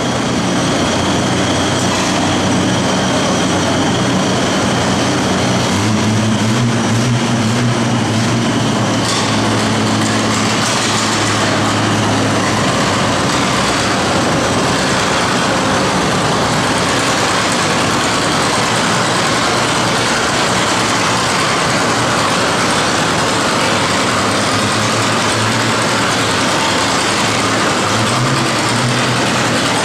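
Antique tractor engines running at a tractor pull, among them a John Deere Model D's two-cylinder engine. A stronger low engine note rises for several seconds about a fifth of the way in, over the steady general racket of the arena.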